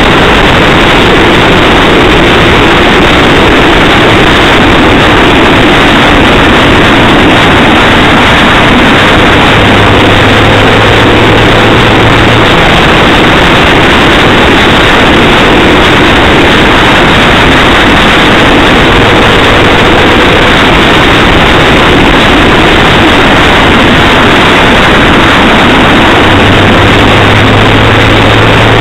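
Cabin noise of a Ford Focus driving on a wet road: a loud, steady rush of tyre and road noise mixed with engine hum, heavily overloaded on a dashcam's microphone. A low engine hum stands out about ten seconds in and again near the end.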